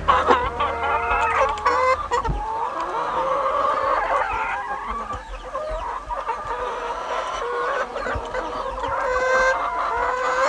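Several domestic hens clucking over one another in a steady, continuous stream of calls.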